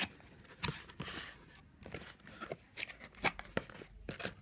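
Cardboard packaging being opened by hand: a box lid slid off and flaps pulled open, with a series of short taps, scrapes and rustles of cardboard.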